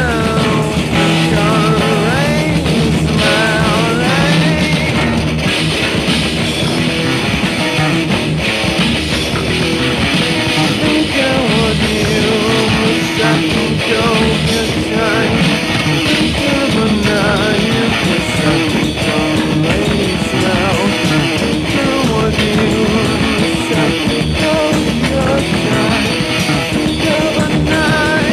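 Rock music led by guitar, with a voice singing in places, playing steadily throughout.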